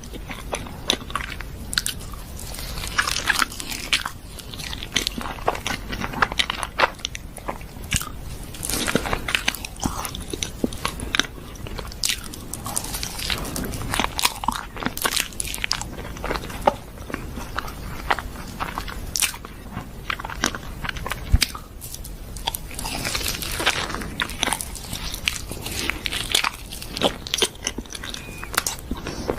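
Close-miked eating of chocolate caramel profiteroles: repeated crunchy bites and wet chewing in an irregular rhythm.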